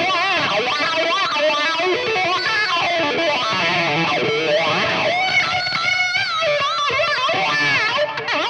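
Ibanez electric guitar playing a lead melody through the wah effect of a Valeton GP-200 multi-effects processor, the notes sweeping and curving up and down in pitch and tone.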